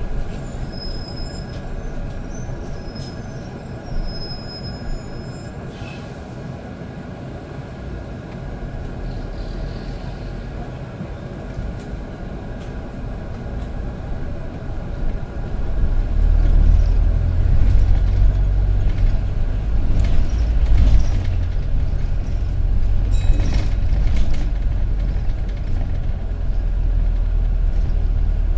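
Inside a running bus: a steady mechanical hum with several held tones and a few short, high squeaks in the first seconds. About halfway through, a low rumble grows louder as the bus drives on.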